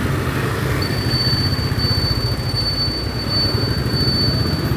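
Motorcycle engine running at low speed in dense city traffic: a steady low rumble with road noise. A thin, steady, high-pitched tone starts about a second in and holds to the end.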